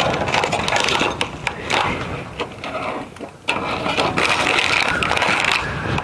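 Clattering and rattling of hard objects being handled and rummaged through, with sharp clicks and scrapes. There is a short lull about three seconds in, and the noise dies down just before the end.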